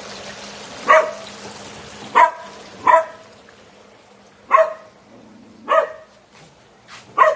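A dog barking: six short, single barks spaced about a second apart.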